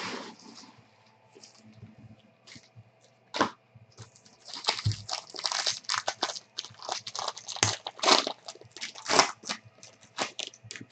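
Foil trading-card pack being torn open and crinkled by hand. There are a few scattered crinkles at first, then several seconds of dense crackling tears from about the middle until near the end.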